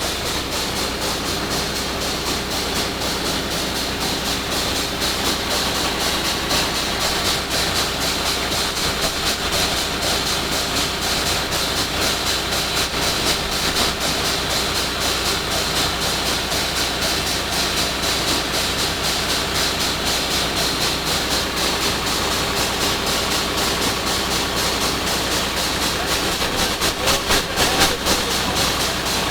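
Drill rig running steadily while drilling: a continuous engine and machinery din with a steady high hiss, and a few louder knocks near the end.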